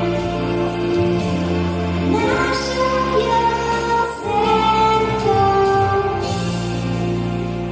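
Music: a song with a sung melody over steady bass notes and a light, regular beat.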